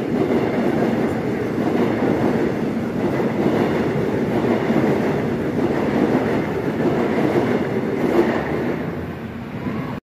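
A train running past on the tracks, a steady loud rumble of wheels on rails that fades near the end.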